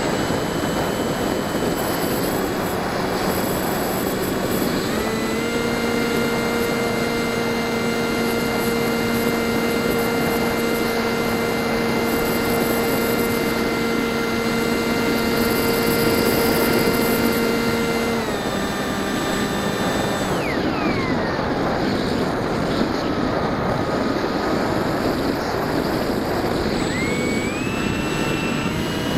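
Bixler 1.1 RC plane's electric NTM 2200kv brushless motor and propeller whining under throttle, with a steady hiss of rushing air. The pitch steps up about 5 s in and holds. At about 18 s it drops away in a falling whine as the throttle is cut, then it climbs again near the end.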